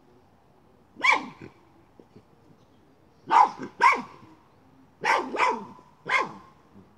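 Miniature schnauzer barking at a chipmunk hidden in a pipe: six short, sharp barks, a single one about a second in, then two quick pairs and a last one near the end.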